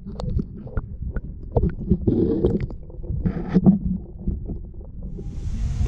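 Knocks and low thumps of handling in a fishing kayak as a bass is put back in the water, with two brief splashy rushes in the middle. Wind on the microphone comes in near the end.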